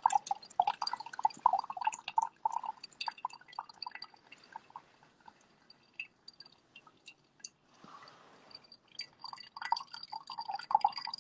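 Coffee dripping slowly as it brews, in irregular drips that are dense at first, thin out in the middle and pick up again near the end.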